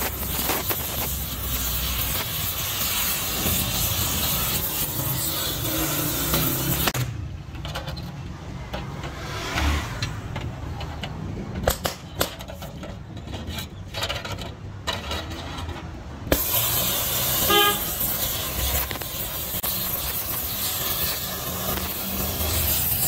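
Gas welding torch flame hissing steadily as it heats the gearbox casing. For about nine seconds in the middle the hiss drops away, leaving scattered sharp clicks and knocks, then it resumes.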